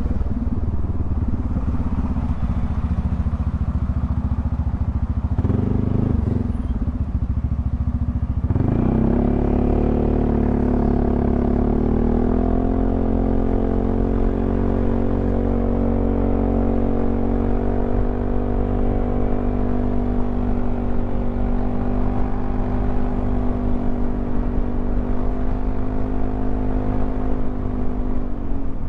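Yamaha XMAX 300 scooter's single-cylinder engine running under way. About eight seconds in it speeds up with a rising pitch, then holds steady at a higher pitch at cruising speed.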